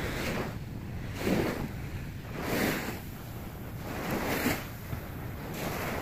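Beach ambience of gentle surf and wind on the microphone, with a soft swish about every one and a half seconds.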